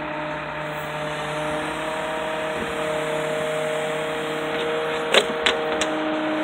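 Bucket truck's hydraulic boom lowering the bucket: a steady mechanical hum with several held tones from the running hydraulics. About five seconds in come three sharp metal clanks.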